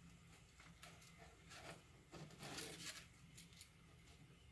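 Near silence, with a few faint rustles and scratches of fingers handling the foam fuselage of a small RC airplane.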